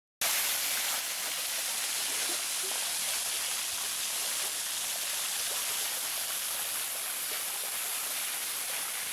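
Upper Fairy Falls, a small bush waterfall, splashing steadily: an even rushing hiss that starts abruptly.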